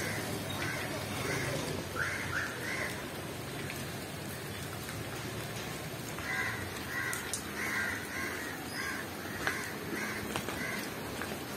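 Crows cawing in short runs of repeated calls over a steady patter of rain falling on pond water and wet stone.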